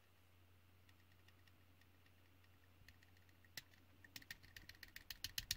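Faint, sharp clicks of an airsoft trigger and small parts being handled in a gearbox shell. They start about three and a half seconds in after near silence and come quicker toward the end.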